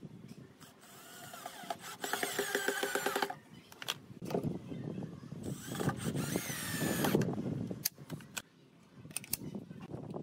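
Cordless drill driving small screws into pine to fix a metal toggle latch: two runs of motor whine, about two seconds in and again around six seconds in. A few sharp clicks near the end as the metal latch is handled.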